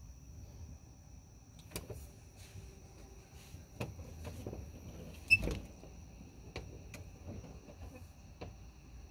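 A steady high-pitched chirring of night insects, with about six scattered sharp pops from distant fireworks; the loudest pop comes about five seconds in and echoes briefly.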